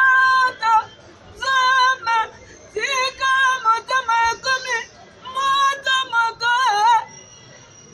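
A high voice singing unaccompanied in short phrases with brief pauses between them, stopping shortly before the end.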